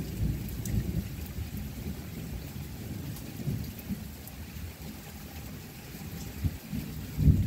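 Rain falling steadily during a thunderstorm, with irregular low rumbles of thunder underneath and a louder low burst near the end.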